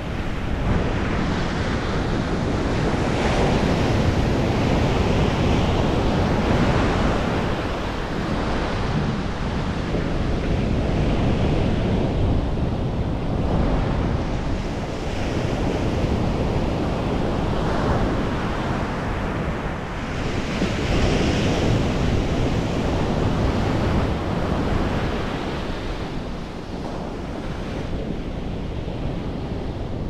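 Ocean surf breaking and washing up a sandy beach, the rush swelling and easing with each wave every few seconds, with wind buffeting the microphone.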